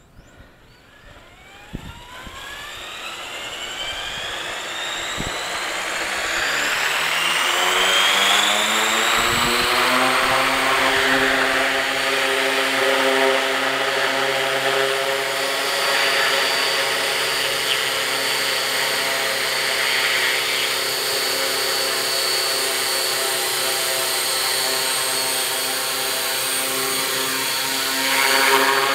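Electric RC helicopter, an Align T-Rex 500 Pro with a four-blade Align rotor head, spooling up: a whine that rises in pitch over the first eight seconds or so. It then runs steadily at head speed, with the motor whine and rotor noise holding level.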